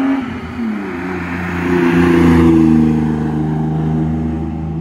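BMW E36's engine and exhaust, breathing through a Flowmaster 40 series muffler with the catalytic converters and resonator in place, as the car drives by. The note dips in pitch in the first second, swells loudest around two seconds in as it pulls, then settles to a steady drone.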